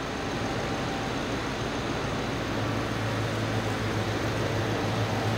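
Ford 6.2-liter gasoline V8 idling steadily, heard with the hood open.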